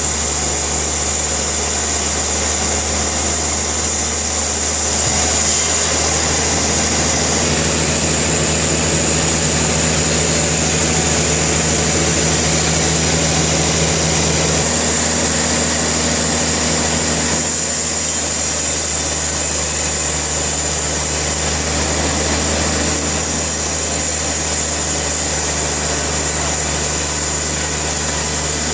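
Sawmill machinery running with a steady mechanical hum. Its tone shifts abruptly a few times.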